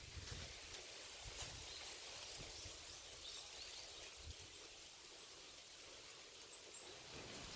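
Faint outdoor ambience: a steady low hiss with soft low bumps on the microphone, a few light clicks, and a few faint high chirps in the middle and near the end.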